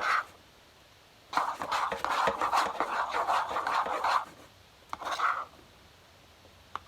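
A spoon scraping and stirring in a bowl of glue and slime activator, in one stretch of about three seconds and then a short burst about five seconds in.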